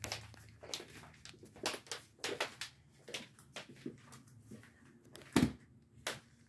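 Irregular taps, knocks and rustles, several a second, with one louder thump about five and a half seconds in.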